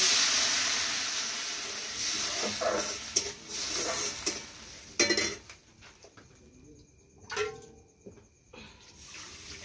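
Rice and urad-dal batter poured into a hot iron wok, setting off a loud sizzle that starts suddenly and dies away over about five seconds. A sharp clink of a utensil comes about five seconds in.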